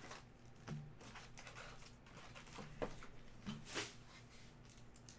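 Faint rustling and crinkling of foil-wrapped trading-card packs being pulled from the hobby box and stacked, with a few short swishes.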